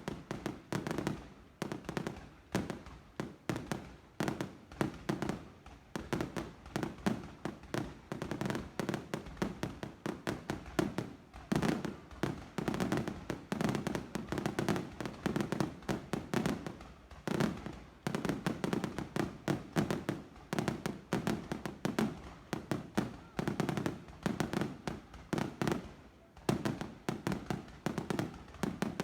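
Fireworks going off in a dense, continuous barrage of bangs and crackles, many per second without a pause.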